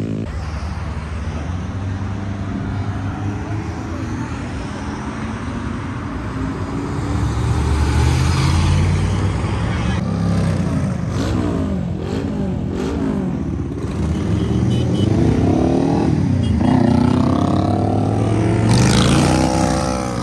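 Motorcycles and cars passing one after another as they pull away, their engines revving up and dropping back, each engine note rising and falling as it goes by.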